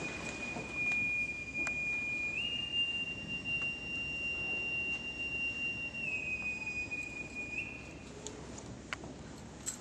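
Boatswain's pipe sounding one long held call, the honours piped for an arriving unit. The note steps up a little after two seconds in, drops back about six seconds in, and stops about eight seconds in.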